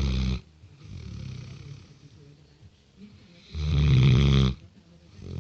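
A six-month-old Great Dane puppy snoring in its sleep. Loud snores come at the start and again about three and a half seconds in, each about a second long, with a softer breath between them.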